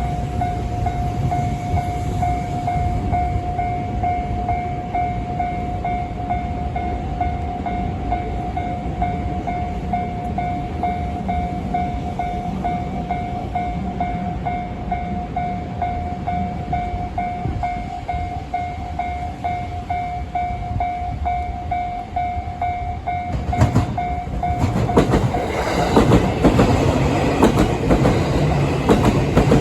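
Level-crossing warning bell ringing a steady repeated tone, which stops about 24 seconds in. Near the end a JR West 287 series electric train passes over the crossing, its wheels clattering rhythmically over the rail joints, louder than the bell had been.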